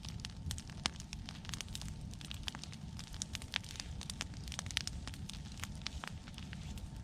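Outdoor wood fire of cut pine and brush crackling, with frequent irregular sharp pops, a few louder than the rest, over a low rumble.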